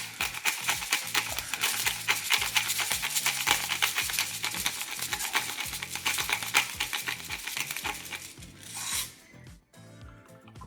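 Pepper mill grinding pepper, a continuous fast crunching rattle of clicks that stops about nine seconds in. Background music plays underneath.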